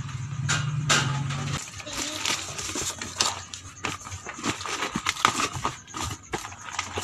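Cardboard carton being pulled open and its plastic packaging handled: a run of crackling and rustling.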